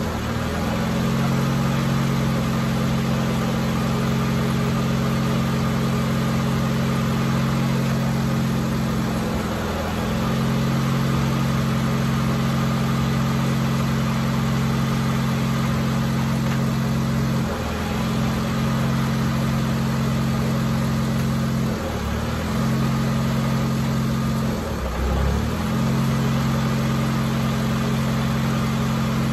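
Honda Civic's four-cylinder engine running steadily at idle after a clutch replacement, its even hum briefly wavering about four times.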